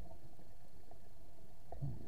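Muffled low underwater rumble heard through an SJ4000 action camera's waterproof housing. A click comes near the end, then a low burst of scuba exhaust bubbles begins.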